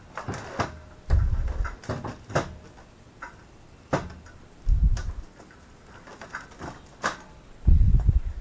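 Scattered knocks and clanks of a metal mower lifting jack being pulled out of a storage shed, with three short low thuds about a second, five seconds and eight seconds in.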